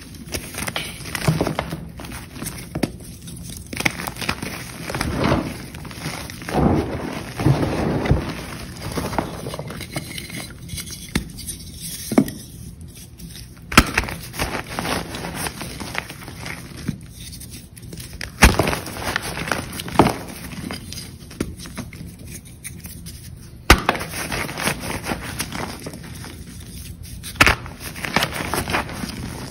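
Chalk crunching and crumbling, with irregular crackling and several sharp cracks as pieces break.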